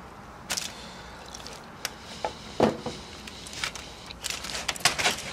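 Aluminium foil crinkling and rustling in short, irregular bursts, with small clicks and soft wet handling noises, as gloved hands pull the bones and meat of a smoked lamb shoulder apart on it.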